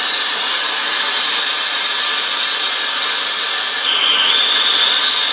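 Handheld gas torch burning with a steady hiss as it heats an aluminium joint to melt a brazing rod. A high whine runs through it and drops in pitch briefly about four seconds in.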